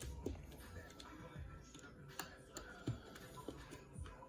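Faint, irregular small clicks and ticks of a precision screwdriver turning tiny screws out of a PSP-1000's plastic housing.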